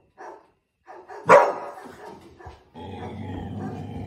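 Border collie puppy barking: a few short low calls, then one loud, sharp bark about a second in. A steady drawn-out low sound follows near the end.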